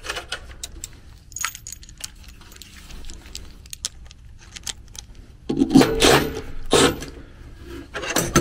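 Metal tools and sheet-metal blower parts being handled: scattered light clinks and scrapes, then two louder clattering bursts a little past the middle and one more near the end.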